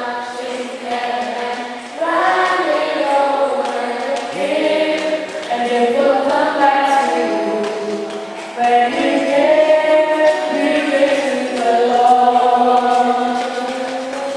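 A church choir singing an offering song, several voices together in phrases that break about every two seconds.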